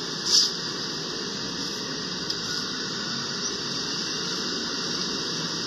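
Train running past with a steady rolling noise, and a brief high squeal about a third of a second in.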